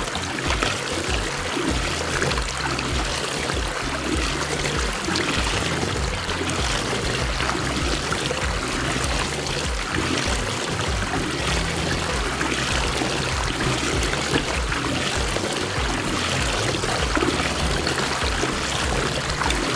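Water swirling and rushing down the drain of a whirlpool vortex, a steady churning, with background music and its bass line running under it.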